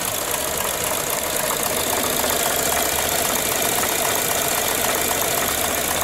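Toyota Corolla's four-cylinder 16-valve VVT-i engine idling low and steady at about 500 RPM and shaking real bad. The low, unsteady idle comes from the ECU's learned idle settings being wiped when the battery was disconnected.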